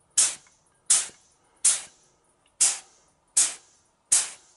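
Gravity-feed paint spray gun spraying primer in six short trigger bursts, about one every three-quarters of a second. Each burst is a sharp hiss of air that dies away quickly. The gun is set to low air pressure, about 1.6 bar, with a narrowed fan for a small spot repair.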